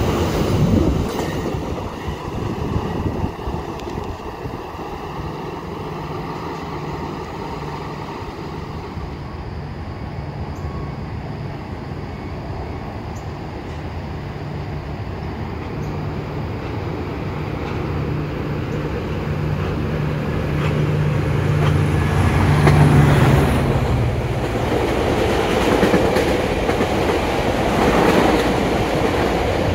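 EXO commuter train approaching and passing underneath. A steady low drone grows louder for about twenty seconds. In the last few seconds, wheels rumble and clack over the rail joints as the bilevel coaches go by.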